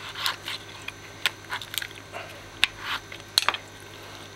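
Kitchen knife cutting through a raw African catfish head, crunching through the jaw cartilage and bone as the lower jaw is split from the upper: irregular sharp crunches and clicks, the loudest a little over a second in and again past halfway.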